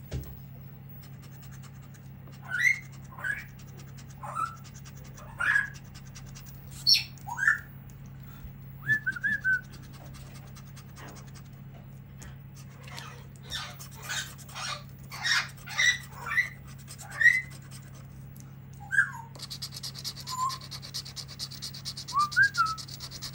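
Pet parrot giving a string of short whistles and squawks, some sliding up or down in pitch, with a quick run of calls in the middle, over a low steady hum. A rasping scrape starts near the end.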